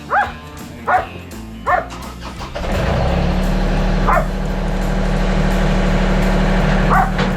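A dog yelping and barking in short excited calls, three in quick succession. About two and a half seconds in, a farm tractor's engine starts up and runs steadily, with the dog barking twice more over it.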